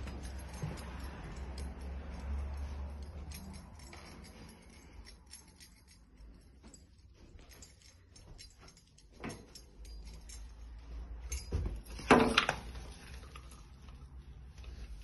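Handling noise from a hand-held phone carried through rooms, with scattered light clicks and knocks and a short, louder clatter about twelve seconds in.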